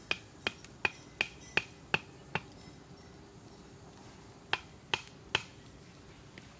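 Sharp, evenly paced taps of a large knife knocking on wood, about three a second for the first two seconds or so, then three more after a pause.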